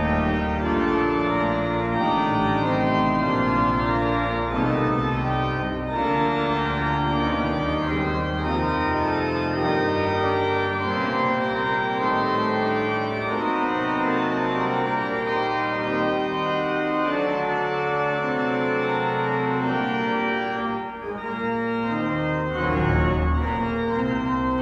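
Pipe organ playing sustained, changing chords over deep bass notes, ringing through a large church interior; the bass drops out for a few seconds near the middle.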